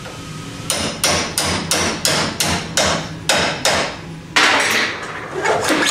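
Hammer tapping a pin punch to drive a roll pin into the steel body of a wireline running tool. About a dozen quick, ringing metal-on-metal strikes, roughly three a second, begin less than a second in.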